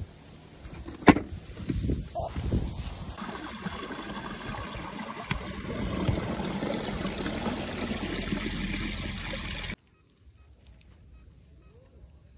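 Handling and rustling of a woven plastic sack holding freshly caught fish and eels, with one sharp knock about a second in; the rustling stops abruptly near the end.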